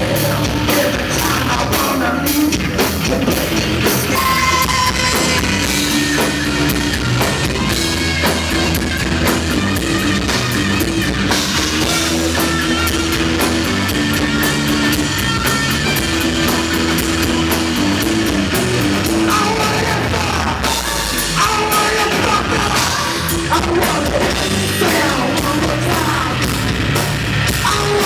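Loud rock music: a band with drum kit, guitars and singing, playing steadily throughout.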